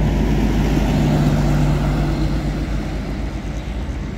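Intercity coach's diesel engine running as it drives past, a steady hum that slowly fades toward the end.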